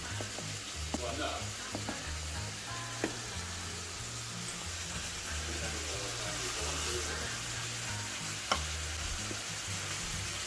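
Steady sizzle of hamburger frying in a pan, with a few light clicks of a plastic measuring cup scooping dry rice. Faint background music with a low bass line runs under it.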